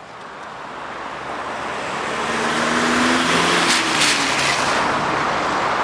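A road vehicle passing close by: tyre and engine noise swelling over about three seconds, then staying level as traffic noise.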